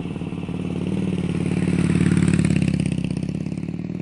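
Motorcycle engine running with a fast, even pulsing, swelling louder toward the middle and easing off slightly near the end.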